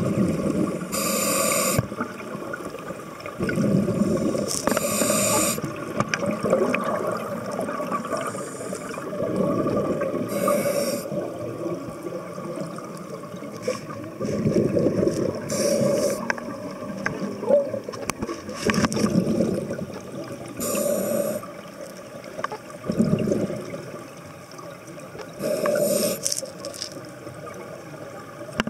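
Underwater scuba breathing through a regulator: a hiss of inhaled air and a bubbling of exhaled air, repeating about every five seconds, about six breaths in all.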